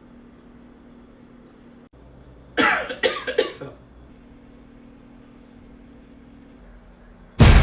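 A man coughing three times in quick succession, a short coughing fit. A loud sound starts suddenly right at the end.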